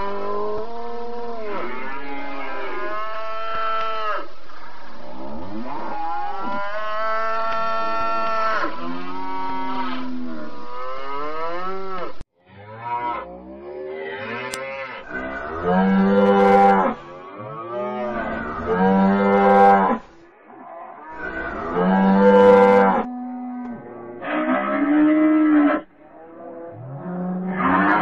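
Cattle mooing. For the first dozen seconds the moos overlap and run together without a break. After an abrupt cut comes a string of separate long moos, about one every three seconds, each rising and then falling in pitch.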